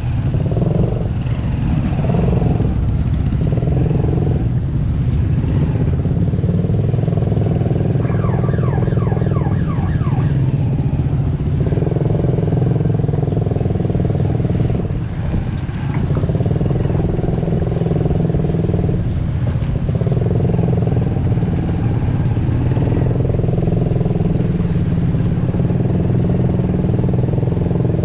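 A motor vehicle's engine running steadily and loudly close to the microphone, as when riding along, with a brief run of rising whines about eight seconds in.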